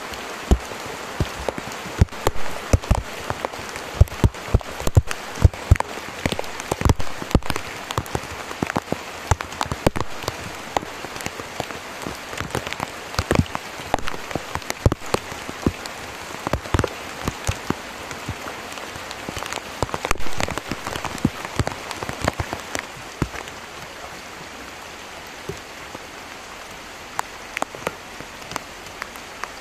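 Heavy rain falling steadily, with many sharp, close raindrop hits; the close hits grow sparser in the last several seconds.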